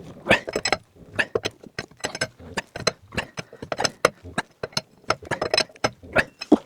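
Irregular clicking, tapping and knocking of small hard objects being handled, several sharp clicks a second.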